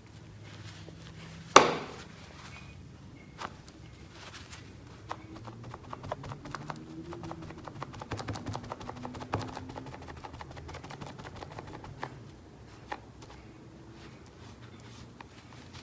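A paper towel rubbed and dragged over wet oil and cold wax paint on paper, giving a dry scratchy crackle that is densest in the middle. One sharp tap or knock comes about a second and a half in.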